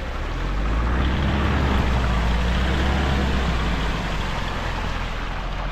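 A motor vehicle's engine running close by: a steady low hum that swells about a second in and eases off toward the end, as a vehicle passing on the road would.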